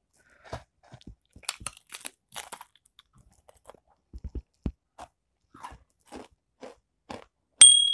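Mr. Potato crisps crunching as they are bitten and chewed close to the microphone, in short irregular crunches. Near the end a loud, bright ding rings out and fades over about a second.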